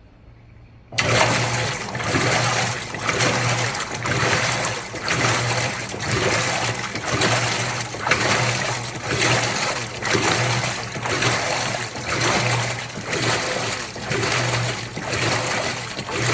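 Maytag Centennial top-load washing machine running with water, starting suddenly about a second in, then sloshing and churning in a regular surge a little more than once a second over a low motor hum.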